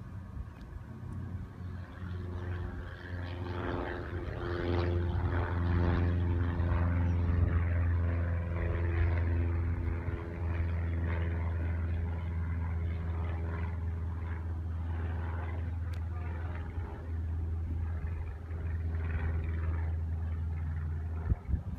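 An engine running steadily at a low pitch, getting louder about four seconds in and then holding steady, under way across open water.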